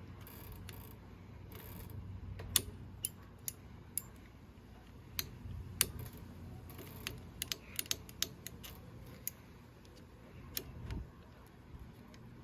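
Scattered sharp clicks and small mechanical rattles as the handlebar brake lever and its parking-brake lock on a Honda TRX450ER quad are worked by hand. The clicks come irregularly, bunching together in the middle stretch, over a faint low hum.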